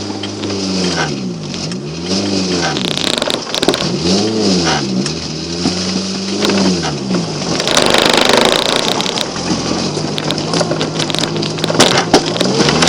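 Mk2 Volkswagen Golf's 1.3 four-cylinder petrol engine revving up and falling back again and again, about every two seconds. About halfway through, a loud rushing scrape comes in over a steadier engine note, with a few sharp knocks near the end.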